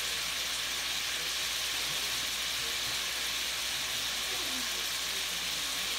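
Sausages, green bell pepper and onion sizzling steadily in a frying pan over turned-up heat.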